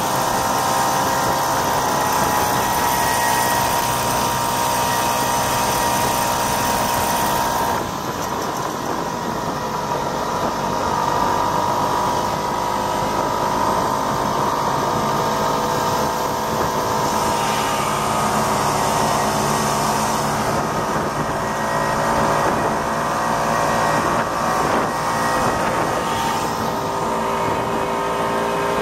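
1967 Ski-Doo Olympique's 250 cc single-cylinder two-stroke engine running steadily at trail speed, its pitch drifting slightly up and down.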